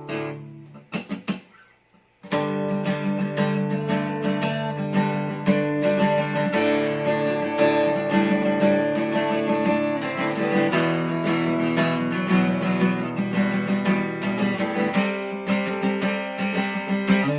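SQOE Cranberries 41 acoustic guitar played with a pick: a few light clicks, then chords ringing out continuously from about two seconds in, with quick pick strokes.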